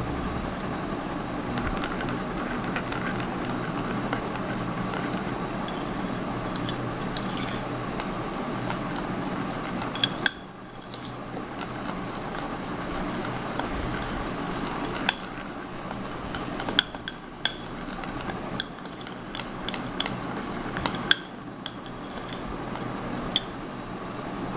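A metal spoon stirring in a small glass bowl, clinking sharply against the glass about a dozen times in the second half, over a steady background hum.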